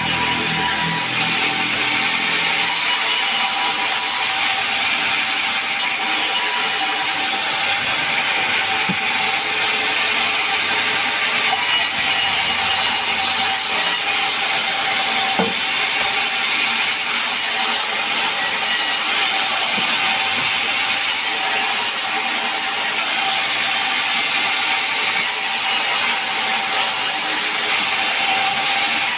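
Sawmill saw running and cutting pine logs: a loud, steady noise with a thin, even whine that hardly changes.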